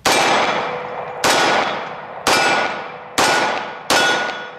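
Colt 1911 Government .45 ACP pistol firing five +P rounds in steady succession, about a second apart, each sharp report followed by a long fading echo.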